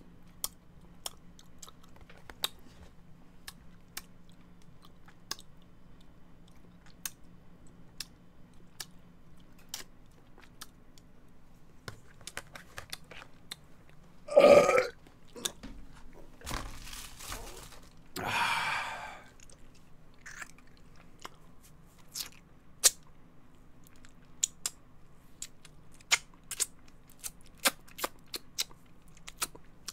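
Close-miked mouth sounds of a man eating spaghetti: scattered wet chewing clicks and smacks, with one loud burp about halfway through. A couple of softer, breathy sounds follow a few seconds after it.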